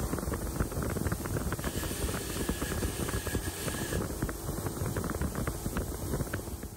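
Bench grinder running with the steel handle bracket of an old hand drill pressed against its spinning wheel: a dense, scratchy grinding noise over the motor's hum.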